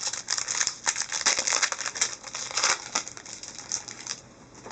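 Crinkling and rustling of a hockey card pack's wrapper as the next pack is opened by hand, dying away about four seconds in.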